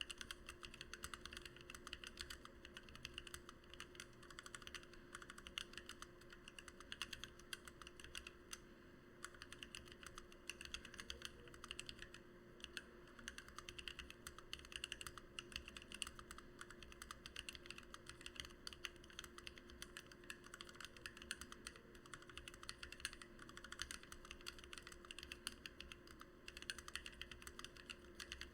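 Fast, continuous typing on a Lily58 split mechanical keyboard with lubed and filmed Gateron Black Ink V2 linear switches and PBT OEM-profile keycaps. There are short pauses about halfway through and near the end.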